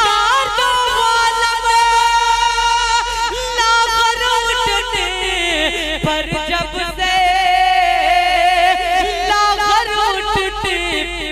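A man singing a naat into a microphone, drawing out long held notes with wavering vocal ornaments between them.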